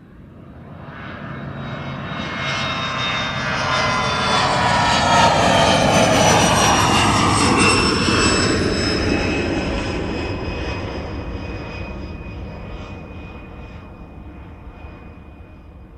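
Large jet airliner flying low overhead. Its engine noise swells to a peak about halfway through, with high whining tones that slide down in pitch as it passes, then fades away.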